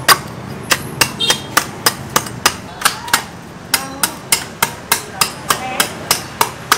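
Steel cleaver chopping the fibrous husk off a young coconut held on a wooden chopping block: a steady run of sharp strikes, about three a second.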